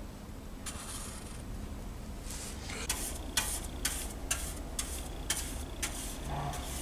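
Quick rasping strokes, about two a second, from hand-finishing a small fabricated metal bracket. A short hiss comes first, then the strokes start about two and a half seconds in.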